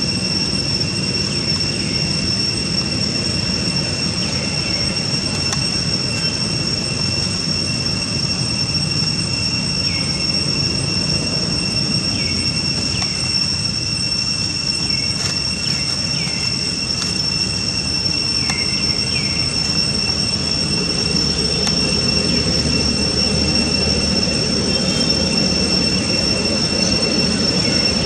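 Steady high-pitched drone of cicadas, unbroken throughout, over a low rumble, with a few short falling chirps scattered through it.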